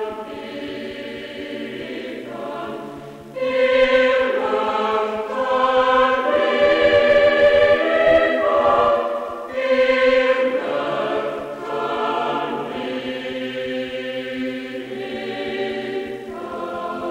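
A choir singing slow, held notes that change every second or two, swelling louder about three seconds in.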